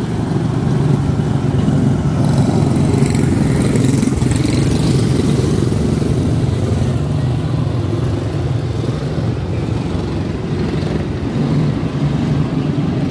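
Several quarter midget race cars with small single-cylinder Briggs & Stratton Animal engines running together on a dirt oval, a steady engine sound that rises and falls slightly as the pack circles.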